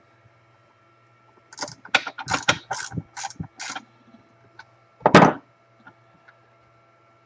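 Hand tools being handled: a quick run of about seven sharp metallic clicks and clatters, then one louder rattle a few seconds in.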